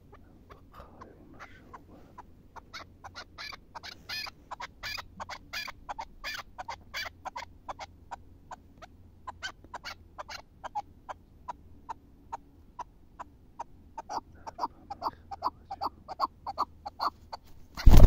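Chukar partridge calling a long series of short, clucking notes, about two to three a second, louder in stretches. A loud rustling burst comes right at the end.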